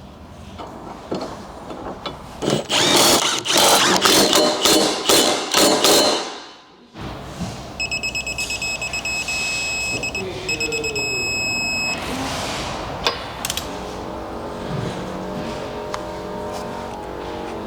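Loud rattling of a tool running down the towbar mounting bolts, then, after a short break, a torque wrench beeping in two long stretches at a high pitch, the signal that the bolts have reached their set torque.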